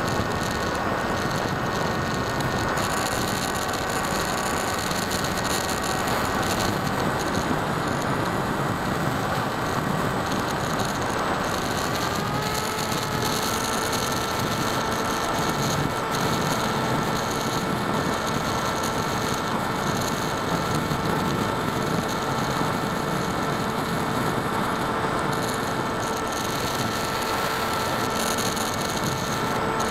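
Electric motor and propeller of a small foam FPV model plane, heard from its onboard camera: a steady whine over rushing air noise. The whine steps up slightly in pitch about twelve seconds in as the motor speeds up, then holds.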